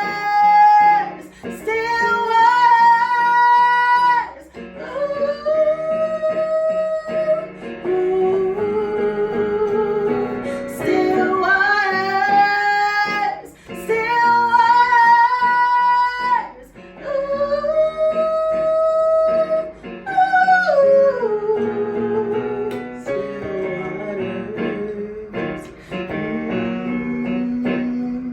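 Song music: a woman's voice singing long held notes in phrases of a few seconds each, over guitar and piano accompaniment.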